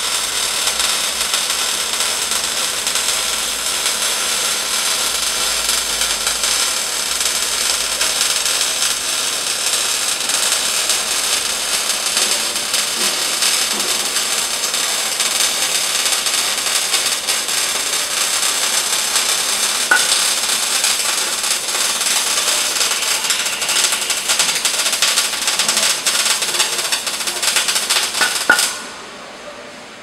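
Longitudinal seam welding machine running a weld: the welding arc gives a steady, crackling hiss that cuts off suddenly near the end as the pass stops.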